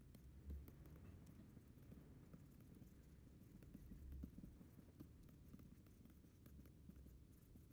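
Near silence: faint, irregular ticks and scratches of a stylus nib on a pen display's screen, over a low room rumble.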